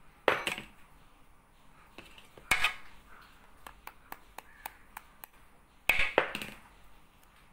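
Steel spoon rapping a raw egg's shell: three sharp knocks a couple of seconds apart, with faint clicks between, until the shell cracks.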